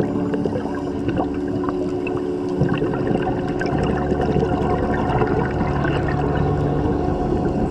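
Underwater sound picked up by a diving camera: a wash of water noise with scattered crackling clicks over a steady low hum.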